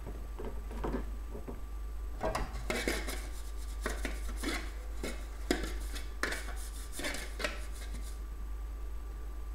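Aluminium cake pan being greased with butter: a red kitchen utensil rubs and scrapes around the inside of the pan, with clinks of the metal pan as it is handled. The strokes come in quick, uneven bursts from about two seconds in until about eight seconds.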